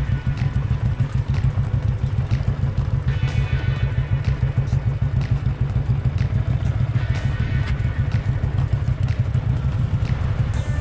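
Motorcycle engine running while riding, a steady low rumble with a constant rapid flutter.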